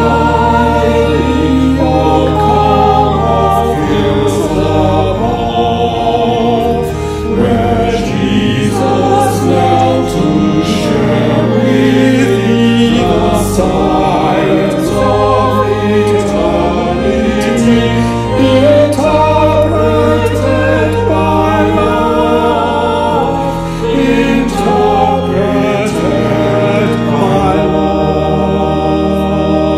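A choir singing a hymn over held low bass notes.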